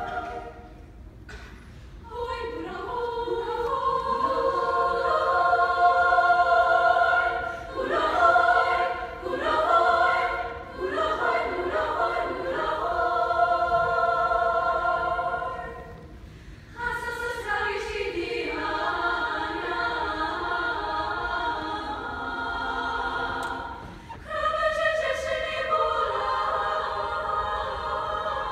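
Women's choir singing a cappella in several-part harmony, in held phrases with short breaks between them. About eight seconds in, the chords turn short and separated for a few seconds before the long held lines return.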